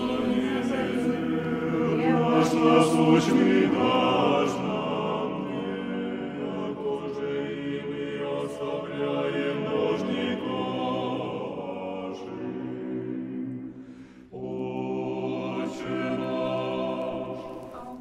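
Several voices sing an Orthodox prayer chant without accompaniment, in sustained lines. The singing breaks off briefly about three-quarters of the way through, then resumes.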